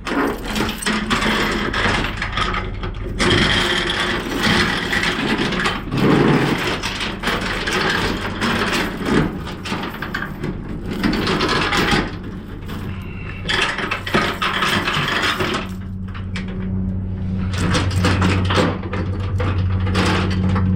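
Flatbed strap winch being cranked tight with a ratcheting winder bar: clicking of gears and pawl, with rattles of strap and hooks. A steady low hum comes in near the end.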